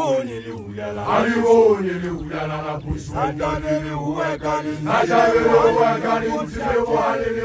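Male voices of Basotho initiates chanting loudly: one voice rising and falling in pitch over a steady held note.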